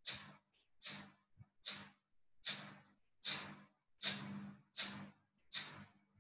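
Kapalabhati pranayama (skull-shining breath): a run of short, forceful exhalations through the nose, about eight sharp puffs at a steady pace of a little more than one a second.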